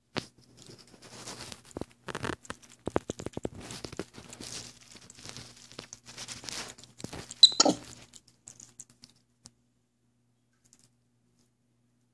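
Capuchin monkey eating broccoli close to the microphone: irregular crunching and chewing with rustling handling noises, with one louder sharp crack about seven and a half seconds in, stopping about eight seconds in.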